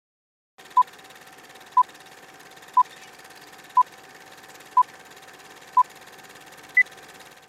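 Film-leader countdown sound effect: six short beeps one second apart, then a seventh, higher beep, over a steady old-film hiss with a faint hum.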